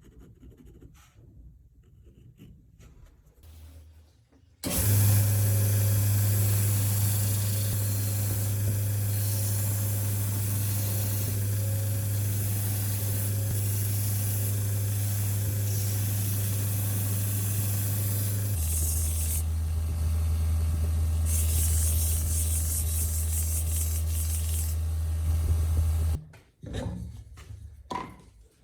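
An electric workshop power tool switching on and running steadily with a low hum and a hiss, its hum dropping a little in pitch about two-thirds of the way through, then switching off, followed by a few light clicks.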